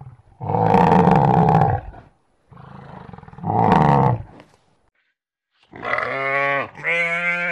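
Two long, hoarse bellows from a buffalo, then two bleats from a sheep near the end.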